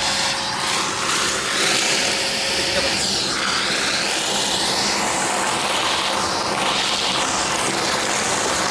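AGARO Rapid 1000-watt wet-and-dry vacuum cleaner running at full suction, a loud steady rush of motor and air. Its tone shifts up and down as the nozzle draws in dust.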